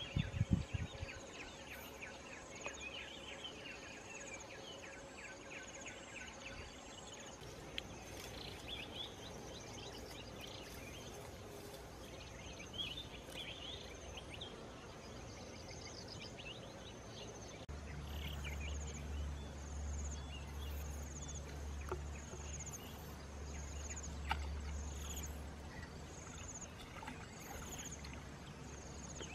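Outdoor countryside ambience: a steady, pulsing high insect trill throughout, with scattered short bird chirps. A low rumble comes in for several seconds past the middle.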